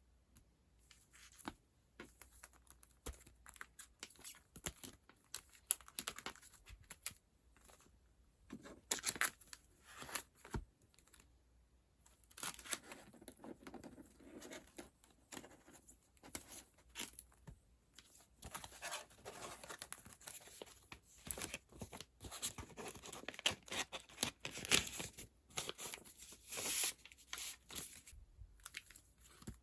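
Paper and plastic packaging being handled up close: irregular rustling, crinkling and tearing noises with short pauses in between.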